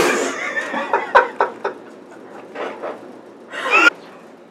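Young women laughing: a loud burst of laughter at first, then a string of short breathy laughs, and one brief high laugh near the end.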